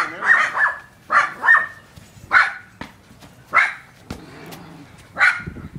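A dog barking repeatedly: a quick run of barks at first, then single barks about a second apart.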